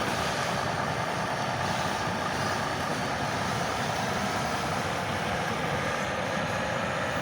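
Simulated diesel truck engine sound from radio-controlled model trucks' sound modules, running steadily.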